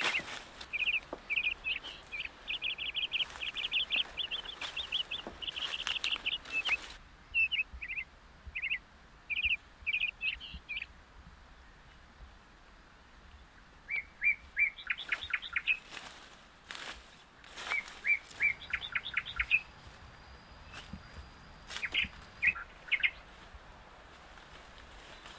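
Small birds chirping in rapid runs of short, high notes, dense for the first several seconds and then in shorter groups with pauses between.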